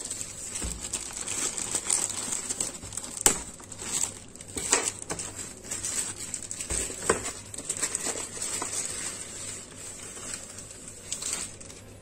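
Clear plastic wrapping crinkling and rustling as it is pulled off a cardboard keyboard box by hand, with irregular crackles and sharper snaps throughout.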